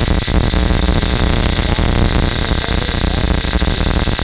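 Remote-control string trimmer running, a loud steady mechanical buzz from its motor and spinning line.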